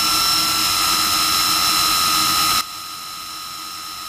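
ZERO 10X Limited 1600 W 10-inch electric scooter hub motor spinning free at full power, about 2,700 rpm, with a steady high-pitched whine over a hiss. A little over halfway through, the sound abruptly drops much quieter but keeps the same steady tone.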